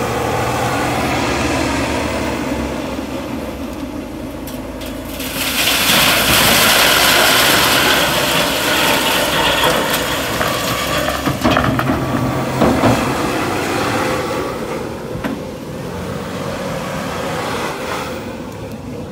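Caterpillar wheel loader's diesel engine running under load as it moves up with a full bucket. About five seconds in comes a loud rush of crushed stone pouring from the tipped bucket into a steel tipper trailer, lasting about five seconds, followed by a couple of sharp knocks, then the engine running on.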